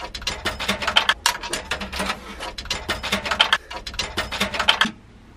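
Coins being dropped one after another into a payphone's coin slot: a quick, uneven run of clicks lasting nearly five seconds.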